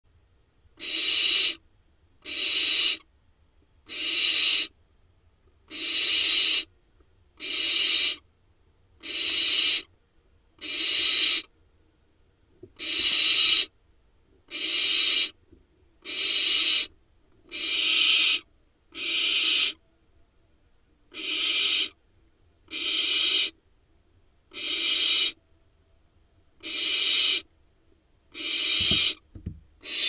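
Young barn owls giving their rasping, hissing begging calls, the 'snoring' food call, one every one and a half to two seconds, each a harsh hiss under a second long. A couple of soft knocks near the end.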